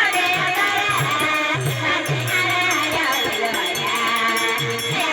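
Adivasi rodali folk music from a songadya party band: a wavering melody over a repeating low drum beat.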